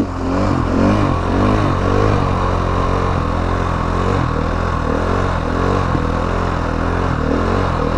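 Motorcycle engine running, its revs rising and falling over and over.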